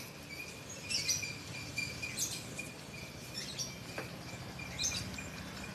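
Small birds chirping on and off in short high calls, over a faint steady high-pitched hum.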